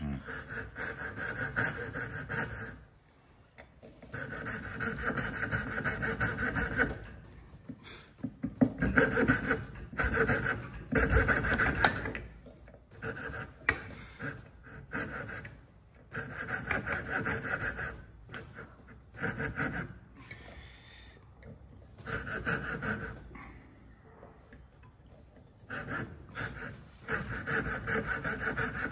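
Coping saw cutting the waste out of a dovetail socket in timber: runs of quick, even rasping strokes lasting a few seconds each, with short pauses between the runs.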